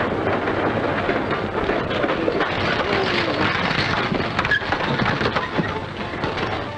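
Hoofbeats of a stagecoach's horse team and the rumble of its wheels on a dirt street as the coach drives up and pulls in: a dense, continuous clatter.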